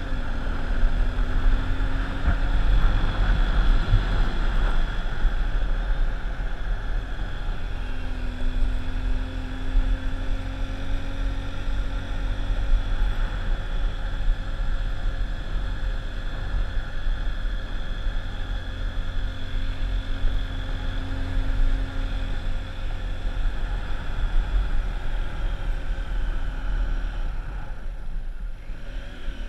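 Motor vehicle engine running steadily on the move, its note wavering a little, under a heavy rumble of wind on the microphone. The sound dips briefly near the end.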